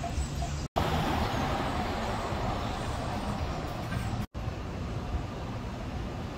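City street traffic noise: a steady hum and low rumble of passing cars and other vehicles. It drops out to silence twice for an instant, under a second in and about four seconds in.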